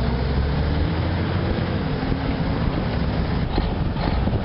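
Engine of a heavy off-road vehicle pulling a trailer loaded with wood through deep mud, running steadily under load.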